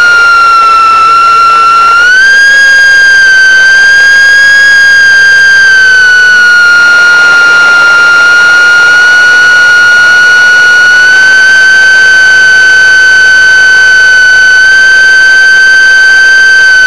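High-pitched whine of a small camera drone's electric propeller motors: one continuous tone with overtones that steps up slightly in pitch about two seconds in, sags around the middle, and rises again later, following the throttle.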